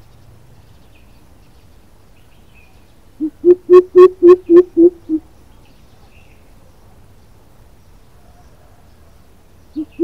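Greater coucal calling: a run of about eight deep hoots at roughly four a second, the first soft and the last fading. A second run of hoots begins near the end.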